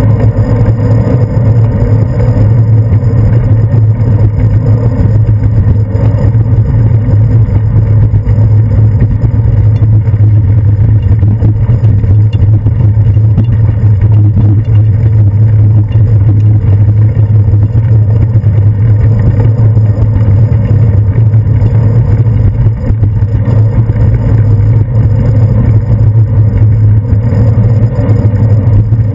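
Loud, steady wind and road rumble on a handlebar-mounted GoPro Hero 2's microphone as a bicycle rolls over city streets, with a busy rattle of small jolts from the road surface.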